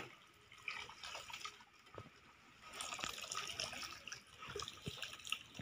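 Bare roots of a bundle of citrus seedlings being swished in watery mud slurry in a wheelbarrow, with irregular wet sloshing and dripping. The roots are being mud-coated so they survive shipping.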